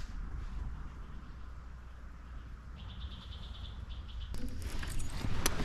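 A bird's short trilled call, a rapid run of high notes lasting about a second and a half, over a low steady rumble. A louder rush of noise comes in during the last second or so.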